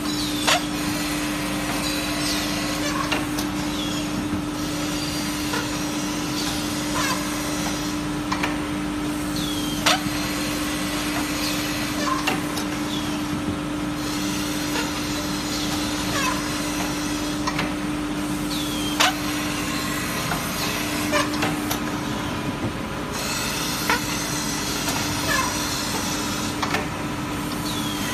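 Automatic melamine tableware edge-grinding machine running: a steady hum with short, sharp clicks and knocks every one to two seconds as the plates are handled and ground.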